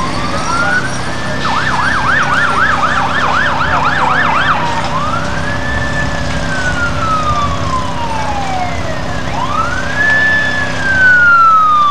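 Emergency vehicle siren: a wail that climbs quickly and falls away slowly, switching about a second and a half in to a fast yelp for about three seconds, then back to two long wail cycles. A steady low hum runs underneath.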